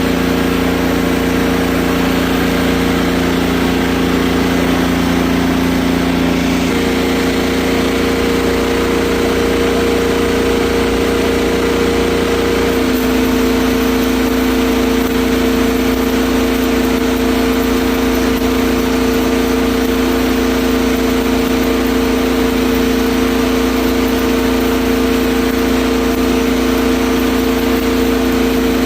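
Mustang skid steer's freshly rebuilt diesel engine running steadily, with small changes in engine speed about six and thirteen seconds in.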